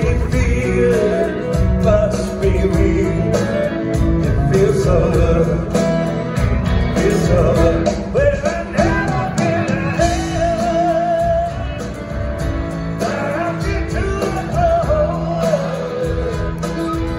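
Live rock band playing, with drums, bass guitar, acoustic and electric guitars and keyboards, heard through the hall's sound system.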